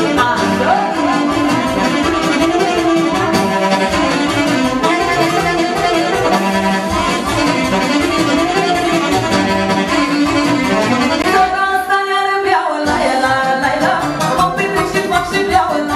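Live band playing Romanian folk dance music, with a saxophone carrying the melody.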